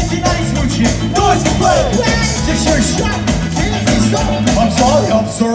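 Ska band playing live through a PA, loud and full: a steady driving beat with bass and drums under wavering melodic lines from voice or horns.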